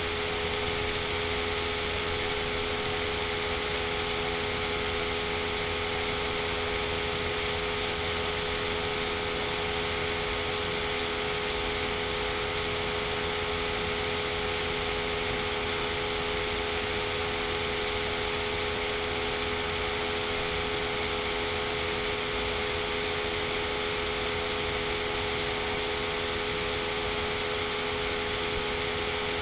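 Steady background hum and hiss with a constant low tone, unchanging throughout, like a running fan or other machine noise in the room.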